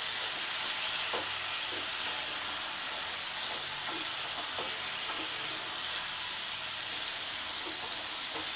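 Bottle gourd curry with lentil fritters sizzling steadily in a kadai on a low flame, a light even hiss with a few faint crackles.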